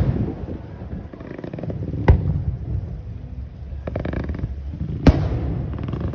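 Aerial fireworks bursting: sharp bangs about two and five seconds in, with a weaker one near four seconds, over a steady low rumble.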